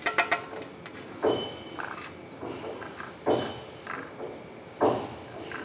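Hands rolling a sweet in desiccated coconut on a ceramic plate: several soft bumps and brushing sounds spaced about a second apart, with a few light clicks at the start.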